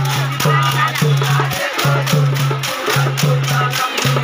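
Fast rhythmic percussion, sharp even strikes about four a second over a repeating low steady tone, with crowd voices behind it.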